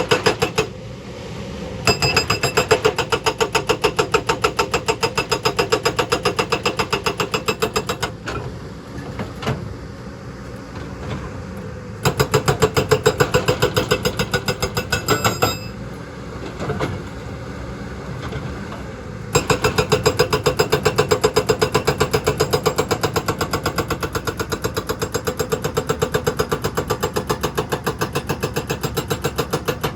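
Excavator's hydraulic rock breaker hammering rock in rapid, even blows, about ten a second, in three long bursts. The diesel engine runs on in the pauses between them.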